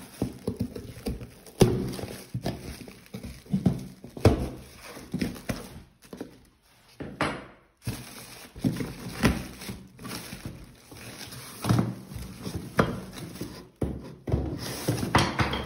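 Irregular knocks, thuds and scrapes of a sink being unpacked in a small room, as the sprayed-in foam packing and cardboard are broken and pulled away from it. There is a short lull about halfway through.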